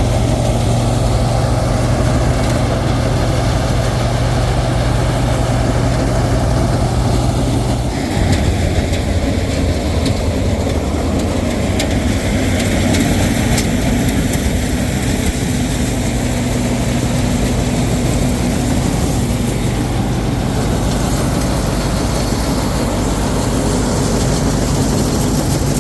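Combine harvester's diesel engine running steadily, with a low hum whose pitch shifts about eight seconds in.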